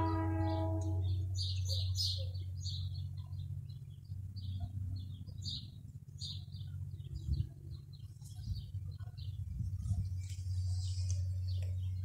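Fepasa locomotive D2351's air horn sounding a held chord that cuts off about a second in, followed by birds chirping repeatedly over a steady low hum.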